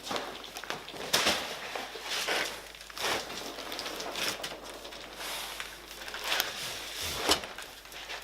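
Plastic wrapping and cardboard packaging being handled and pulled off, crinkling and crackling in irregular bursts with a few sharp knocks.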